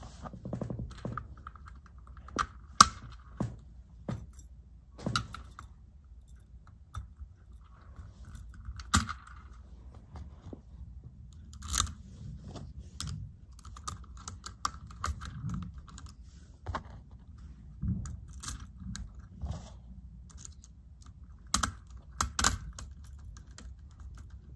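Small metal parts of a traverse curtain rod's master carrier arm clicking and tapping as they are picked up and fitted onto the carrier, in scattered irregular knocks, with a screwdriver working a screw near the end.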